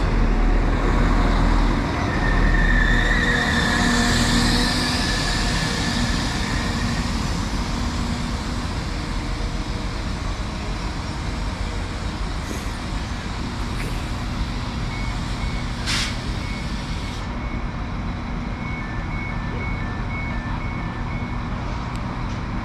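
Class 195 diesel multiple unit pulling into the platform: engine and wheel rumble with a high brake squeal for a few seconds, settling to a steady engine hum as it stands. A sharp click comes about two-thirds of the way in, and a repeated two-note beep sounds near the end.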